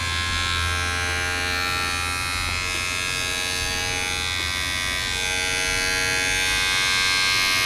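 Bevel Pro cordless trimmer running with a T-blade fitted: a steady electric buzz with a low hum, growing slightly louder near the end.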